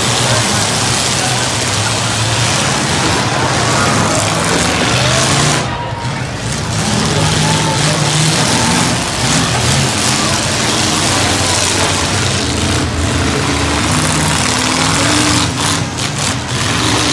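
Demolition derby pickup trucks' engines running loud, revving up and down in pitch.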